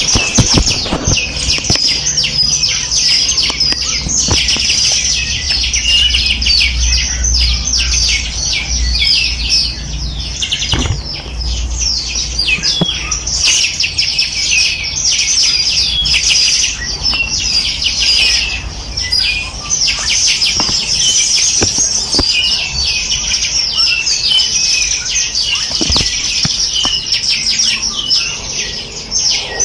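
Many small birds chirping and trilling at once, a dense, unbroken chorus of quick high notes, with a faint low rumble underneath during the first half.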